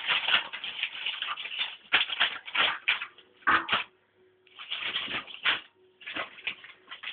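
Crinkling and rustling packaging, in irregular bursts with short pauses, as a dog rolls on it and rubs its face against it.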